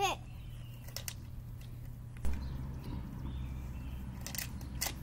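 Low outdoor rumble that swells after a single knock about two seconds in, with a few faint clicks about a second in and again near the end.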